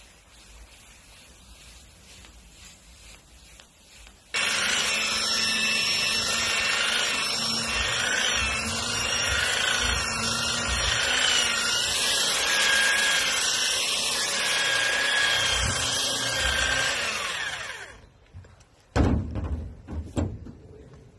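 Faint hand rubbing with a cloth on car paint. About four seconds in, an electric car polisher with a foam pad starts suddenly and runs with a steady motor whine that wavers in pitch, stopping about eighteen seconds in. A few knocks follow near the end.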